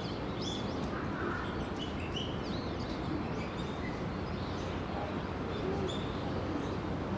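Small birds chirping with short, high calls scattered throughout, over a steady low background rumble.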